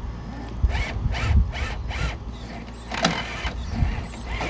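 Traxxas TRX-4 crawler's drivetrain and tires grinding and scrabbling against loose rock and concrete as it strains to climb. It comes in short strokes, about four a second, with a louder crunch about three seconds in.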